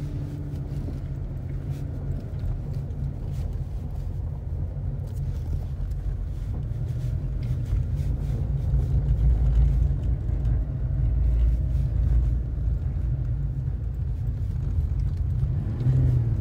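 Pickup truck driving slowly on a snowy dirt road, heard from inside the cab: a steady low rumble of engine and tyres that grows louder about halfway through.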